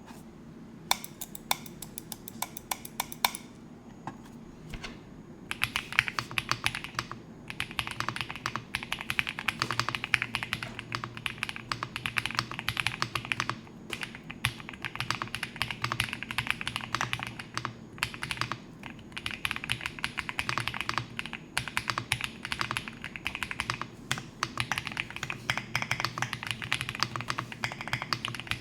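Typing on a custom-built mechanical keyboard: a quick run of evenly spaced key clicks in the first few seconds, a short pause, then fast steady typing with brief breaks.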